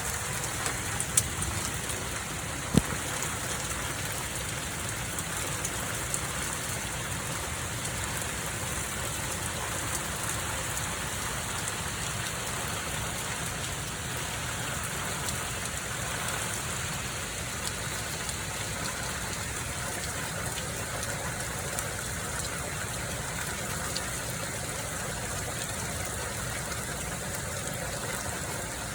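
Hail and rain falling in a steady hiss, with scattered sharp ticks of hailstones striking and one loud knock about three seconds in.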